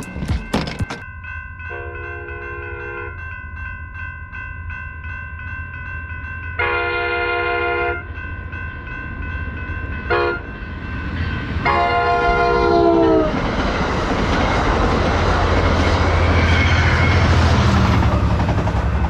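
Railroad crossing bells ringing while an approaching train sounds its horn in the grade-crossing pattern: two long blasts, a short one and a long one. The last blast falls in pitch at its end, and the loud rush and rumble of the train passing close by follows.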